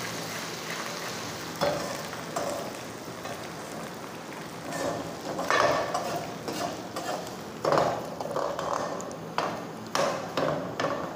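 Sliced onions and ginger-garlic paste sizzling in hot oil, frying off the paste's raw taste. A perforated metal skimmer stirs and scrapes against the metal pot in several sudden strokes from about a second and a half in.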